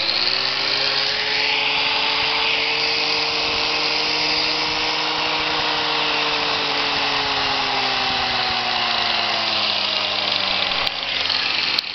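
Angle grinder running with no load, its motor whine steady and then sliding down in pitch over the last five seconds or so as its speed is turned down on an external speed controller.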